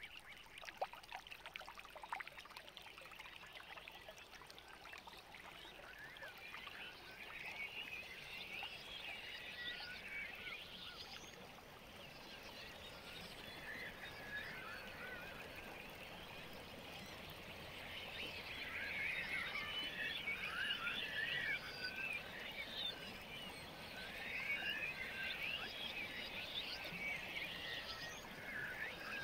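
A dense chorus of short, wavering chirping animal calls that swells and fades in waves, loudest about a third of the way in and again near the end, over a faint steady hiss.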